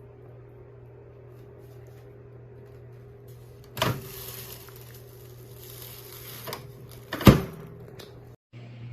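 Toshiba countertop inverter microwave oven running with a steady low hum, with two sharp clacks about four and seven seconds in, the second louder, and a hiss between them.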